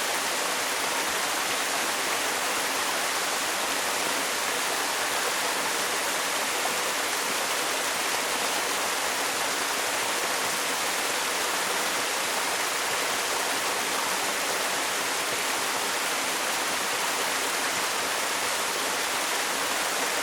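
A small waterfall, about 7 m high, pouring steadily into its pool: an even, unbroken rush of falling water.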